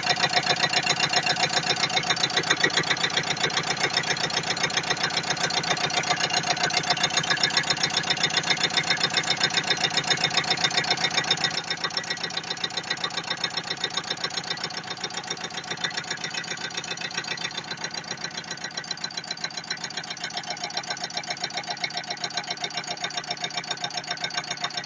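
Car engine idling with a fast, even knocking beat, which the owner suspects is a knocking fuel injector. About halfway through it becomes somewhat quieter.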